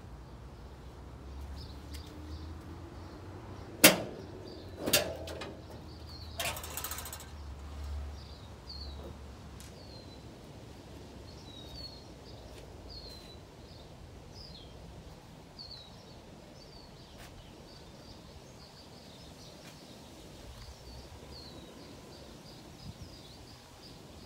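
Two sharp clunks a second apart as the hood latch of a first-generation Pontiac Firebird is released, then a brief scraping creak as the steel hood swings up on its hinges. Small birds chirp in the background.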